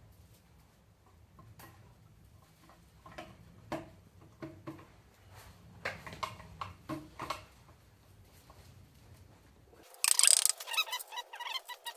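Light clicks and knocks of hand tools and metal parts during gearbox reassembly. Near the end, after an abrupt change in the sound, comes a louder, dense run of rapid clicking.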